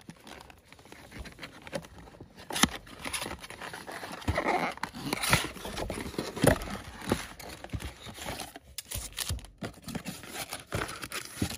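Cardboard trading-card box being opened by hand: flaps pulled apart and cardboard scraping and rustling, with scattered sharp taps and clicks as the foil packs inside are handled.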